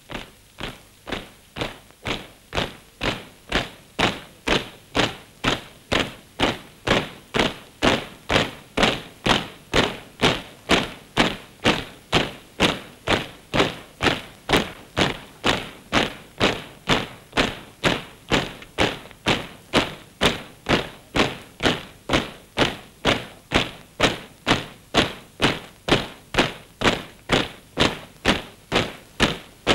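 A column of soldiers marching in step, their boots tramping in a steady beat of just under two steps a second. The tramp grows louder over the first few seconds.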